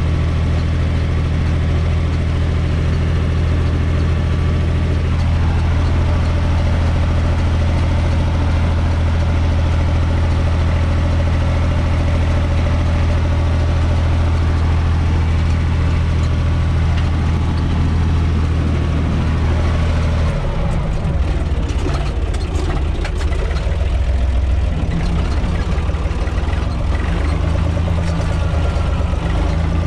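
UTB 445 tractor's diesel engine running steadily, heard from inside the cab. About twenty seconds in, its note drops and becomes unsteady.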